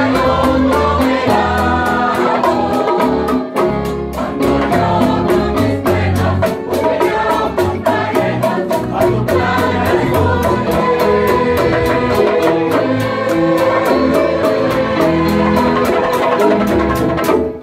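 A rondalla ensemble playing a song: guitars and requintos strummed in a steady rhythm, a group of men's and women's voices singing together, and low bass notes underneath.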